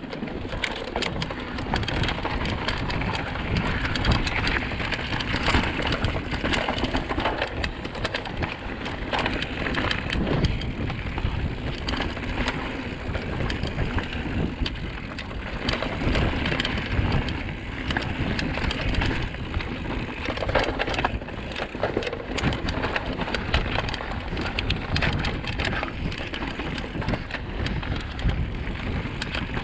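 Giant Trance full-suspension mountain bike descending a rough dirt forest trail at speed, heard from a camera mounted on the rider or bike: the tyres roll over dirt and roots, and the bike rattles and knocks constantly over a steady rushing noise.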